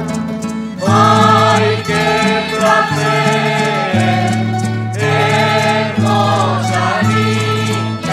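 A rondalla of Spanish laúdes, guitars and a violin playing a popular song, with a mixed choir of women and men coming in singing about a second in.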